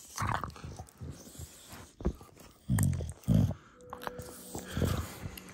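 English bulldog biting and chewing at a yoga mat, with a few short, low noises from the dog in between.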